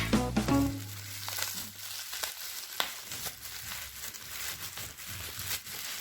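Product packaging crinkling and rustling as it is cut and opened by hand, with scattered small clicks and one sharp click about three seconds in. Background music fades out in the first second.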